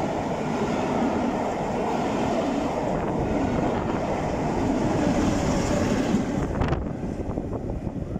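Passenger coaches of a steam-hauled train rolling past close by, a steady rumble of wheels on rails. About seven seconds in the sound drops away suddenly to a quieter rumble with wind on the microphone.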